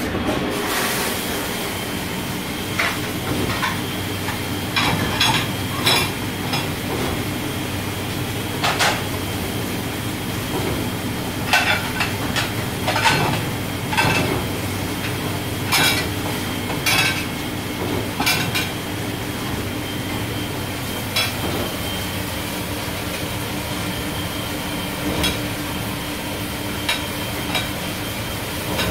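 Dishes and cutlery clattering and clinking at irregular intervals as they are handled, over a steady background hum.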